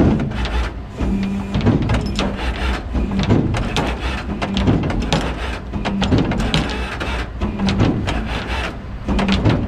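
Tow truck's engine running with a steady low rumble, over a quick, irregular series of knocks and clatter, several a second.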